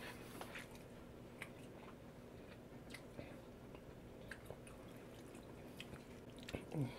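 Faint close-up chewing of battered fried lobster: soft, scattered wet clicks and squishes of a mouth at work, with a brief low falling hum near the end.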